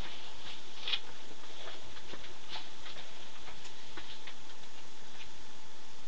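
Light, irregular clicks and ticks, several a second and unevenly spaced, over a steady background hiss with a faint steady tone.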